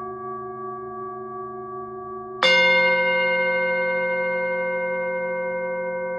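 Singing bowl ringing with several steady overtones, struck again about two and a half seconds in, the new strike ringing on and slowly fading.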